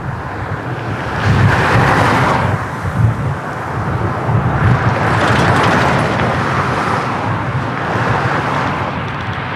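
Steady engine noise outdoors, a rumbling hiss that swells about a second and a half in and again about five seconds in.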